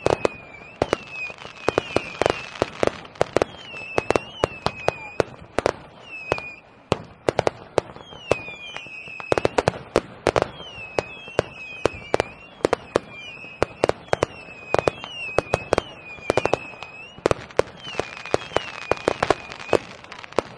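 Fireworks going off in a dense, irregular volley of sharp bangs and crackles, with short whistling tones that dip and rise again repeatedly between the bangs.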